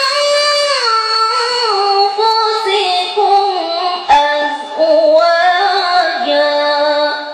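A woman's solo voice through a microphone, chanting Quranic recitation (tilawah) in long, ornamented held notes that glide up and down. There is a brief break about four seconds in, and the phrase ends near the end.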